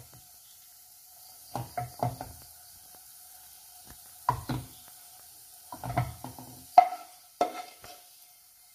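Wooden spatula scraping and knocking against a nonstick frying pan in several short bursts as sautéed sliced onions are pushed around it, with a faint sizzle from the hot pan.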